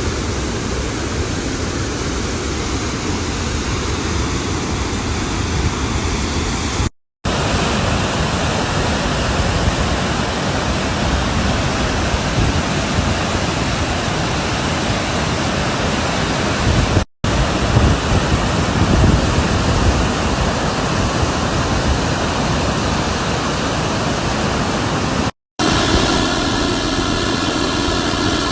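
Loud, steady rushing of floodwater, cut off briefly three times where one clip gives way to the next. The last few seconds carry a different steady noise.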